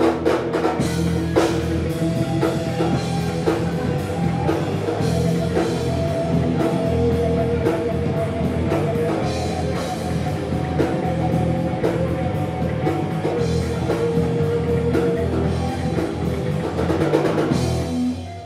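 Live rock band playing an instrumental passage on electric guitars, bass guitar and a drum kit with cymbals. The music drops away near the end.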